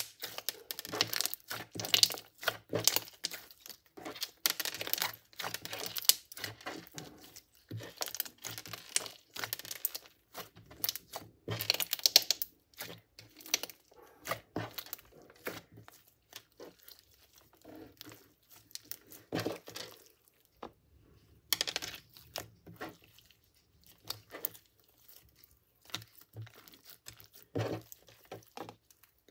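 Thick glossy slime being pressed and kneaded by hand, giving dense irregular crackles and pops of trapped air. The crackling thins out to sparser bursts in the second half.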